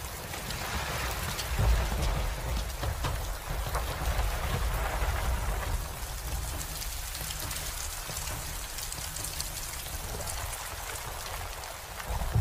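Heavy rain falling on a ship's deck over a low storm rumble that swells loudest about one and a half seconds in.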